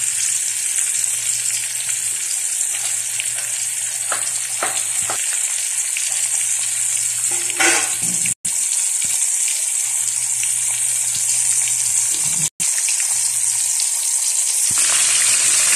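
Pieces of tilapia frying in hot oil in a wok: a steady high sizzle with a few spitting pops, one louder pop about halfway through. The sound cuts out for an instant twice.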